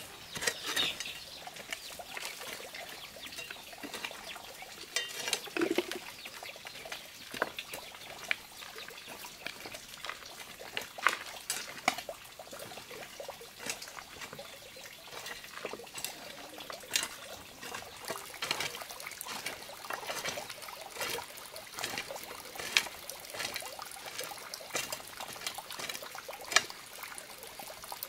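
Hoe blade chopping into dry, lumpy soil in irregular strikes, with loose earth and clods scattering after each blow.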